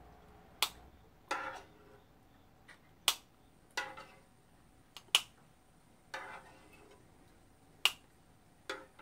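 Metal spoon ladling curry from a frying pan into a ceramic bowl: four sharp clinks about two and a half seconds apart, each followed by a softer scrape.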